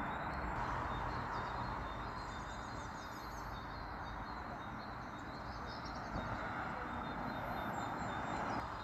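Small birds chirping again and again over a steady rushing background noise.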